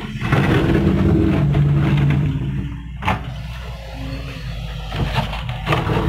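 Doosan DX140W wheeled excavator's diesel engine working under hydraulic load as the bucket digs into dirt and rock. The engine runs strongly for the first two seconds, then eases off as the bucket lifts clear. A single sharp clank comes about three seconds in.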